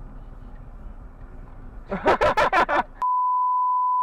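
Low steady car-cabin rumble, then about two seconds in a voice speaking loudly for under a second. About three seconds in all other sound drops out under a steady pure beep: a censor bleep covering swearing.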